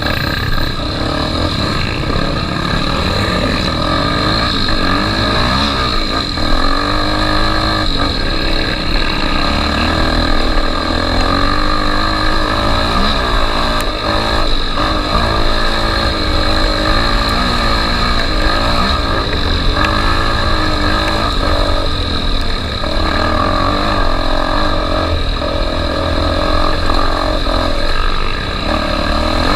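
Honda XR250 Tornado trail motorcycle's single-cylinder four-stroke engine running under way, its revs rising and falling steadily as it is ridden.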